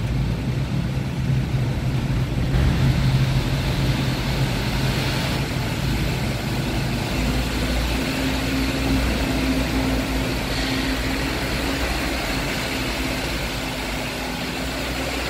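Truck engine running steadily in the ferry's enclosed vehicle deck, a continuous low hum whose pitch shifts a few seconds in as the truck moves along the deck.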